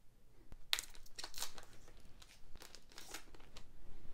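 A foil booster-pack wrapper crinkling and being torn open, a quick run of short, sharp rustles.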